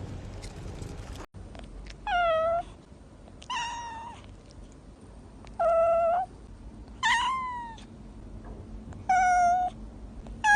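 A domestic cat meowing five times in a row, about every second and a half. Each meow lasts about half a second, and some fall in pitch at the end.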